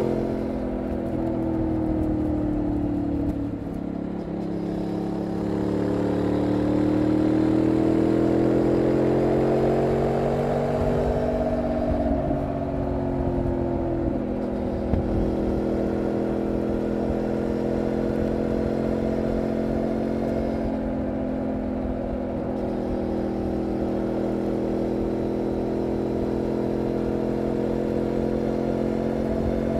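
Benelli Leoncino Trail 800's parallel-twin engine and exhaust under way at road speed. It eases off briefly about three seconds in, then rises in pitch until about eleven seconds in and holds a steady cruise.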